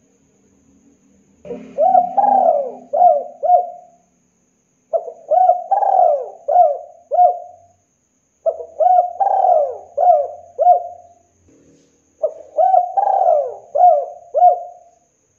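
Spotted dove cooing: four song phrases a few seconds apart, each a quick run of several arching coos.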